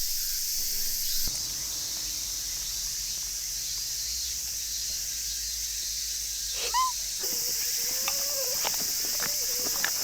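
Steady high-pitched chorus of summer insects. A short, hooked whistle-like call cuts through about seven seconds in.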